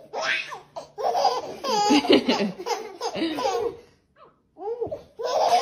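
Young children laughing hard in peal after peal, with a short pause about four seconds in.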